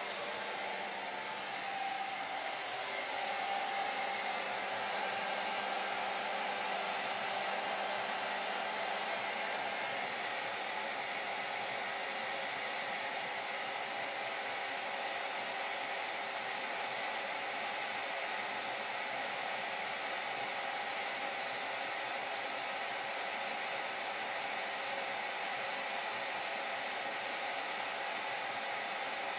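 Hair dryer running steadily: an even rush of air with a faint, constant whine from the motor.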